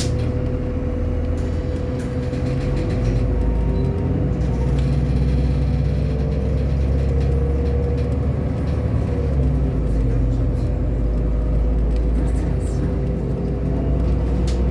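Irisbus Agora L articulated city bus's diesel engine running with a steady low rumble, getting a little louder about three to four seconds in as it pulls.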